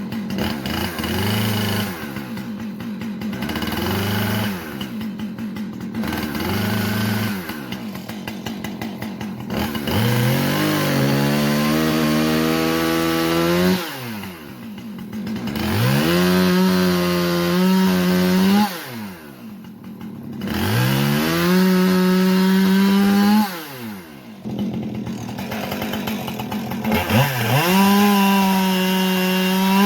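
Two-stroke chainsaw cutting wood. It idles with a few short throttle blips, then is run up to full throttle four times, each held for a few seconds before dropping back abruptly.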